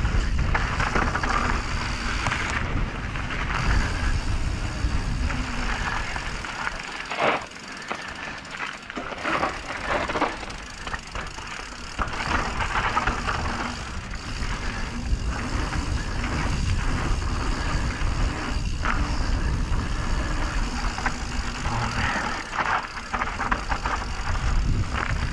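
Mountain bike riding down a bike-park trail: wind rushing over the camera's microphone, tyres on dirt and the bike's chain and frame rattling, with a few sharp knocks from bumps. It eases off for a few seconds about a third of the way in, then builds again.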